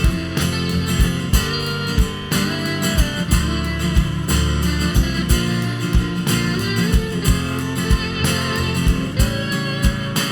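Rock band playing an instrumental passage: guitar over bass guitar and drums, with a steady drum beat.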